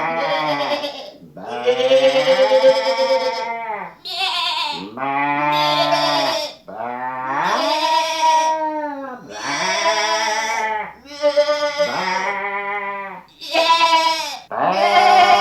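Sheep bleating, about ten long wavering baas one after another, each call rising and falling in pitch.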